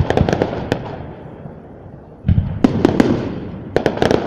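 Fireworks shells bursting overhead: clusters of sharp cracks and booms with rumbling echoes. The first cluster comes at the start, a loud boom about two seconds in is followed by more cracks, and another volley comes near the end.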